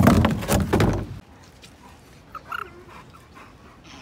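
Loud scraping and rustling in a plastic window well full of dry leaves during the first second, as the toad is grabbed out of it. A few faint short chirps follow about two and a half seconds in.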